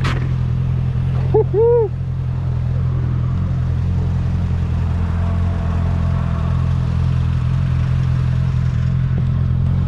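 Motorcycle engine running and road noise while riding, a steady low drone. About a second and a half in, a short two-note pitched sound cuts through briefly.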